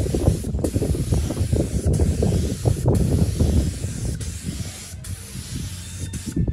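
Gravity-feed compressed-air spray gun spraying paint: a rushing hiss of air and atomised paint, loudest in the first four seconds and easing a little after.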